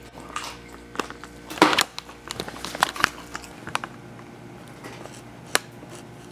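Irregular clicks, taps and light rustles of handling at close range, a few louder knocks about one and a half to two seconds in and again near three seconds, over a low hum that cuts off about three and a half seconds in.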